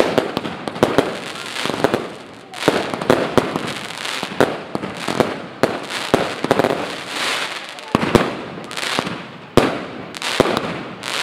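Fireworks display: aerial shells bursting one after another with sharp bangs, each followed by a spread of crackling from glittering stars.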